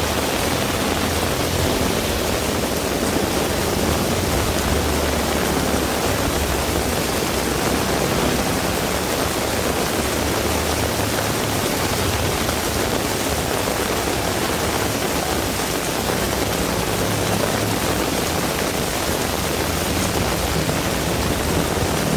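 Heavy rain falling steadily in a dense, even hiss, with a low rumble underneath that swells and fades.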